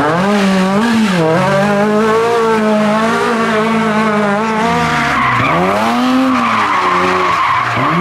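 Rally car engine revving hard, its pitch dropping sharply about a second in and again past five seconds as the driver changes gear or lifts. Tyres squeal and skid through the last few seconds.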